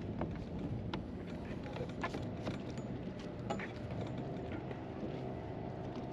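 Sailboat's inboard diesel engine idling steadily while the boat is held at a mooring ball, with a few sharp knocks and clicks over it, about one every second.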